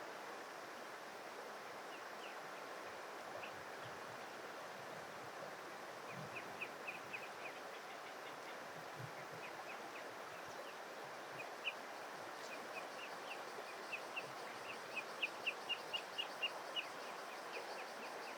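Eastern spot-billed ducklings peeping: short high peeps, scattered at first and coming in quicker runs over the last few seconds, over a steady background hiss.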